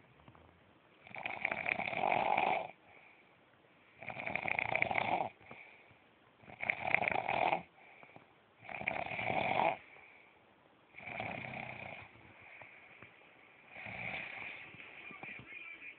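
A sleeping person snoring: six snores about every two and a half seconds, each about a second long, with a fainter breath between them. The last two snores are quieter.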